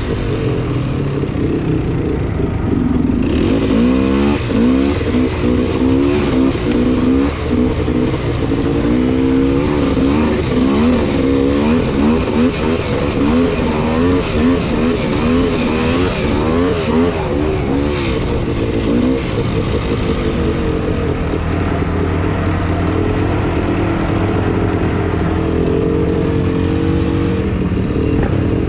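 Polaris Scrambler 400 two-stroke ATV engine under way, its pitch swinging up and down rapidly with the throttle for about the first twenty seconds, then holding a steadier note.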